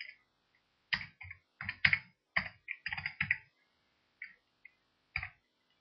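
Typing on a computer keyboard: separate keystrokes in short, uneven runs, then a pause of about a second before a few last strokes near the end.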